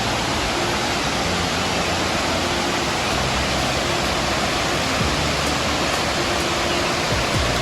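Steady roar of the Tumpak Sewu waterfall, an even rush of falling water with no change or break.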